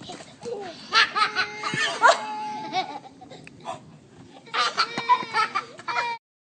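High-pitched laughter in two bouts of quick bursts, cut off abruptly near the end.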